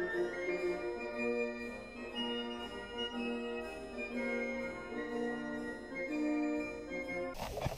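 Background music: a keyboard melody in organ-like held notes, one after another. It cuts off suddenly near the end, where a rush of outdoor noise begins.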